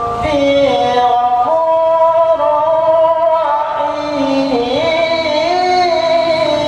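A male voice in melodic Quran recitation (tilawah): one long phrase of held, ornamented notes that step and glide between pitches.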